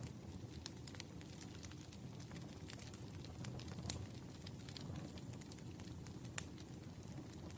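Wood fire burning, with a steady low rumble and irregular sharp crackles and pops, a louder pop about four seconds in and another near the end.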